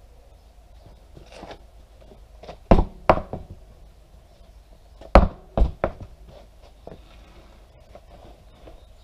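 A truck tire on its alloy wheel bounced on a concrete floor: two thuds about three seconds in, then three more about five seconds in. The bouncing is meant to push the freshly lubed tire bead against the rim so it will seal for inflating.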